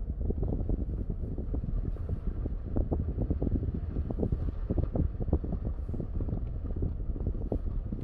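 Car in motion: a steady low rumble of road and wind noise, with irregular gusts of wind buffeting the microphone.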